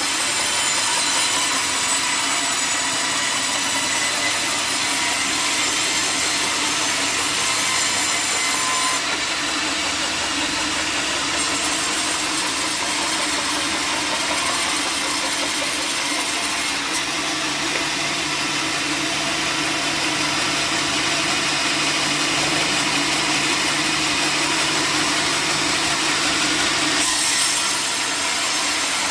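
Power saw cutting steadily through timber, with a steady motor hum underneath from about halfway through until near the end.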